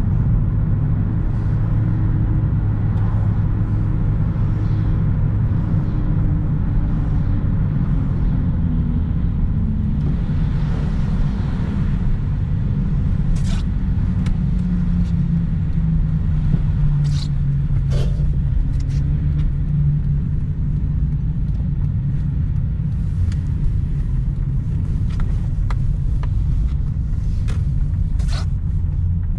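Mitsubishi Lancer's 1.6-litre 4G18 four-cylinder engine and road noise while driving, a steady low rumble. The engine note sinks slowly over the first dozen seconds, then holds lower, with a few sharp clicks scattered through the second half.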